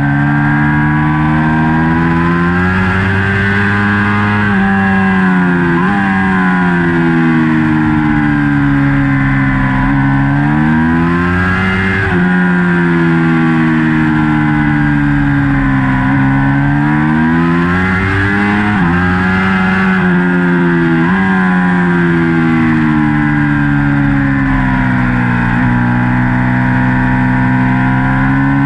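Ducati Panigale V4 sport bike's V4 engine at racing speed, heard from on board: the engine note rises and falls over and over, with sudden jumps in pitch at the gear changes, as the bike accelerates out of corners and brakes into the next.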